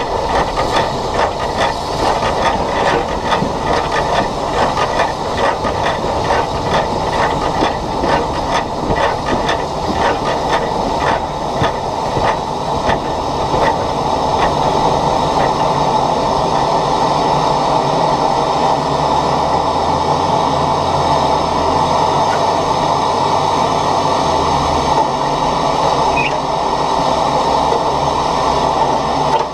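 SECR H class 0-4-4 tank steam locomotive running along the line, heard from on the engine itself. A quick rhythmic beat fills roughly the first half and gives way to a steadier rush.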